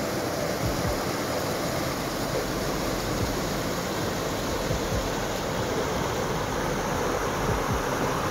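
Steady rushing of a rocky hill stream and its waterfall, white water pouring over boulders.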